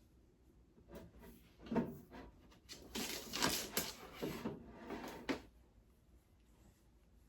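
Flat-pack dresser parts being handled during assembly: a run of knocks and scraping from about one second in until about five and a half seconds in, densest in the middle.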